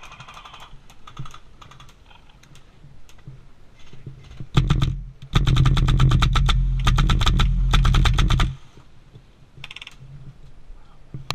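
Airsoft rifle firing close by: a short burst about four and a half seconds in, then about three seconds of rapid full-auto fire, a fast run of clicks over a steady low whir, stopping suddenly. Fainter scattered shots from other guns before and after.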